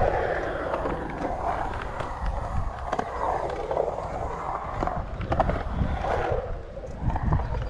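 Skateboard wheels rolling on concrete through a skatepark bowl, with a few sharp clicks along the way.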